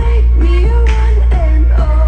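Harman Kardon Go + Play 3 portable Bluetooth speaker playing a song with singing over deep, sustained bass, loud.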